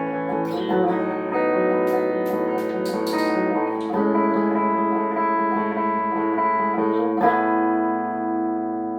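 Tagima TW61 guitar played in a sound test after servicing, with picked chords left ringing and a new chord every few seconds.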